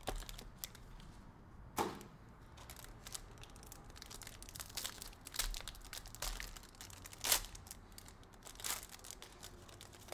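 A cardboard trading-card box being opened, then a foil card pack crinkled and torn open by hand. It is a run of irregular sharp crackles and rips, the loudest about two seconds in and again about seven seconds in.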